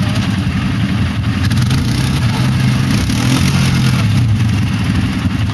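Single-cylinder-type ATV engine running hard under load, revving as the quad's wheels spin and dig through loose dirt.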